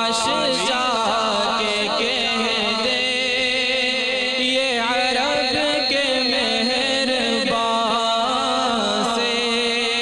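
Man singing a naat into a microphone through a PA, drawing out long ornamented notes in a chanting style over a steady drone.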